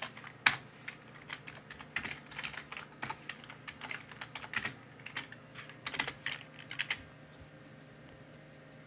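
Typing on a computer keyboard: irregular keystrokes for about seven seconds, then the typing stops, leaving a faint steady hum.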